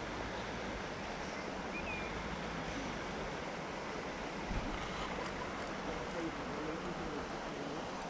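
Steady outdoor background hiss beside a lake, with a soft knock about halfway through and a few faint chirps.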